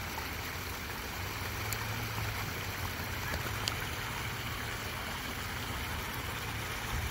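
Water running over rocks into a pond, a steady trickling and splashing, with a low steady rumble underneath.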